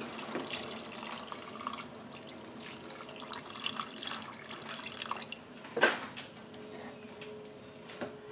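A thin stream of water pouring and splashing into a pot of chicken in broth, filling it. There is one sharp knock a little before six seconds in.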